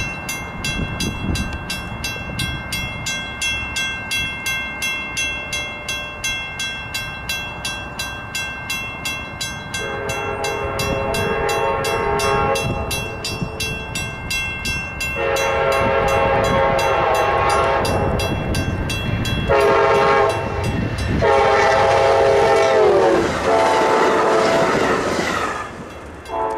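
A diesel passenger locomotive's air horn blowing the grade-crossing signal, long, long, short, long, as the train approaches, the last blast dropping in pitch near its end. Under it, a crossing bell rings steadily at about two strikes a second.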